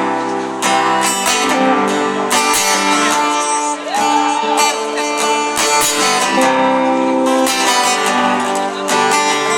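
Acoustic guitar strumming chords, with the chords ringing on between strokes.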